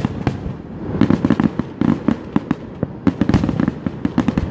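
Fireworks going off in dense, irregular clusters of rapid bangs and crackling pops, with one sharper, louder bang a little past three seconds in.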